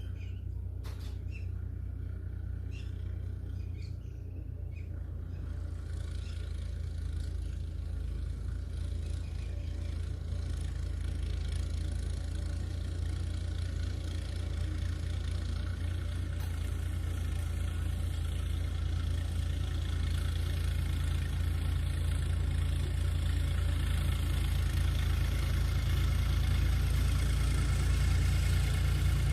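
Tractor engine running steadily, a low rumble that slowly grows louder, as if coming closer. Birds chirp over it in the first few seconds.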